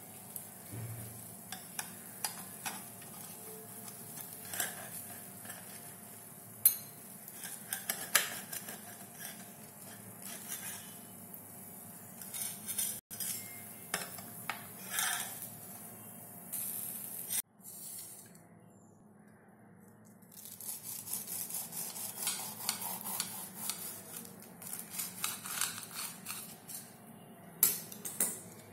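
Metal spatula and utensils clinking and scraping against a sandwich maker's grill plate and a ceramic plate as grilled sandwiches are lifted out, in scattered short clatters. Later a longer stretch of rapid scraping and crunching as a knife cuts through the toasted sandwich.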